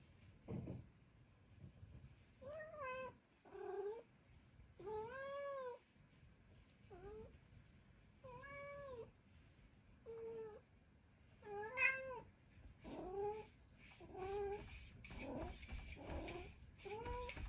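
Minuet cat meowing over and over, about a dozen calls that each rise and fall in pitch, coming roughly once a second after a quiet start. These are worried calls for its owner, who has gone out of sight behind a closed door.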